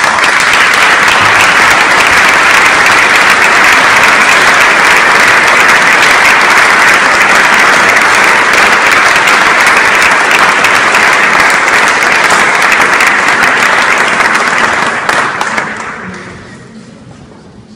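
Audience applauding loudly, beginning all at once and dying away about fifteen seconds in.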